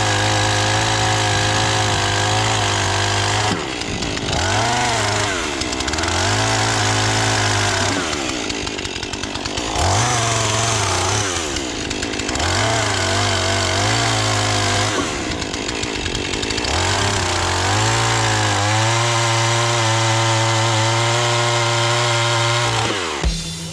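Two-stroke chainsaw running at full throttle. Its pitch sags about six times and recovers, as the engine bogs under load, typical of cutting into firewood. It cuts off suddenly near the end.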